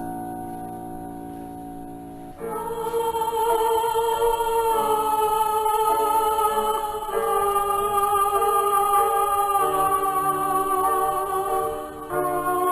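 Background music: a sustained instrumental chord fading out, then about two seconds in, voices begin singing long held notes in a slow choral style.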